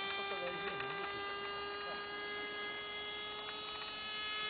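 Motor of a radio-controlled model plane flying overhead: a steady high-pitched drone that drifts slightly in pitch as the plane moves.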